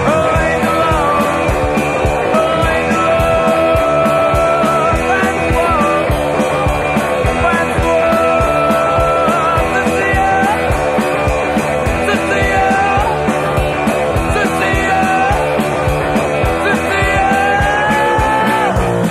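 Rock music with a steady drum beat and long held melody notes that bend in pitch.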